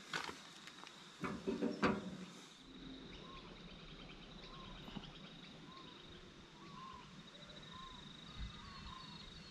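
A few clicks and knocks from handling a spinning rod and reel in the first two seconds, then riverbank quiet with birds calling repeatedly and a steady high whine.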